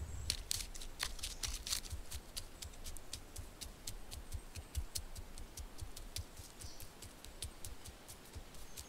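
Faint, irregular small clicks and soft low taps, several a second, densest in the first couple of seconds and then sparser, like a crackling or tapping sound effect.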